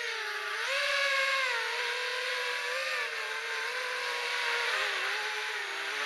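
Brushless motors and 5x4x3 three-blade props of a 5-inch FPV quadcopter (Sunnysky X2204S motors) whining in flight, picked up by its onboard camera. The pitch wavers up and down with throttle and sags a little near the end.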